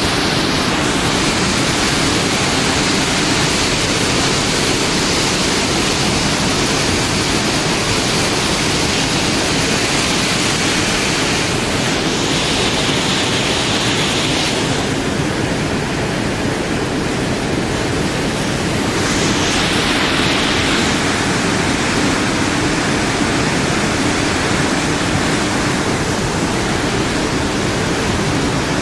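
Churning wake of a Nimitz-class aircraft carrier under way at speed: a loud, steady rush of foaming water stirred up by the ship's propellers.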